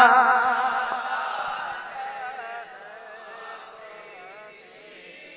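A man's long sung note with a wide vibrato, the tail of the word 'Madina' in a naat, fading out in the hall's echo over the first second or two. After that, fainter voices sing along with the line.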